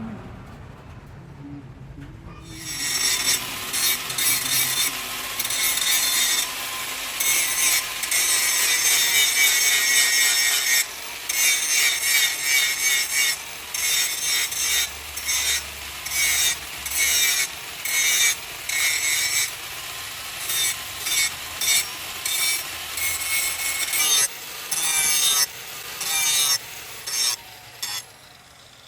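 Rasping, scraping strokes of a file or abrasive worked against a surface, starting about two and a half seconds in and going on in stretches broken by short pauses, then dying down near the end.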